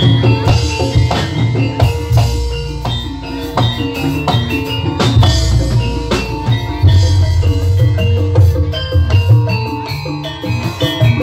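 Jaranan senterewe music: an ensemble of drums and struck gamelan percussion playing a busy, steady rhythm, with ringing pitched metal tones over it.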